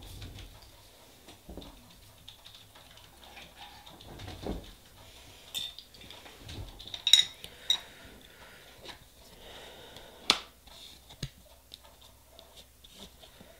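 Light clinks and clicks of metal nail-stamping tools being handled on a table, with a scattering of sharp clicks, the loudest about seven seconds in.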